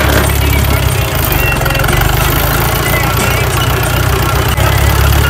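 Tractor diesel engine running steadily with a low, even hum, heard from the driver's seat while the tractor drives along.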